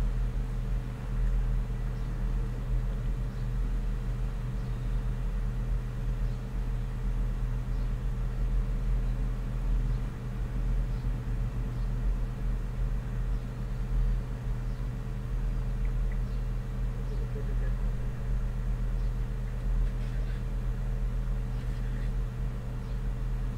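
A steady low hum that holds unchanged throughout, with a few faint small clicks over it.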